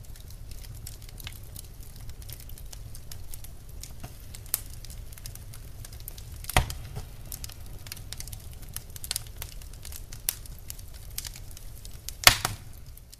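Quiet car-cabin background: a steady low rumble with scattered light clicks and taps, and two louder knocks, one about halfway through and one near the end.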